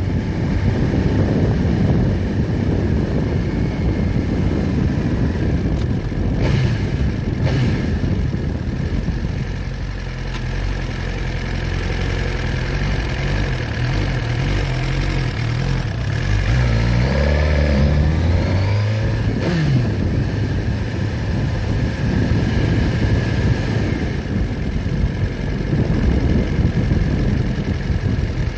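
A motor vehicle engine running steadily. Its pitch shifts up and down midway through, then falls in a short downward glide.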